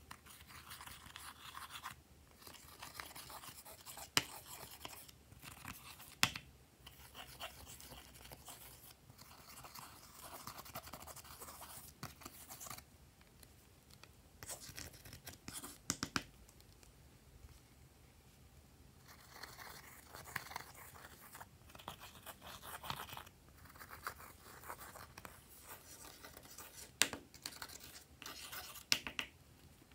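Glossy slime being mixed and worked, in irregular bursts of soft, sticky noise with sharp little clicks, broken by a few short pauses.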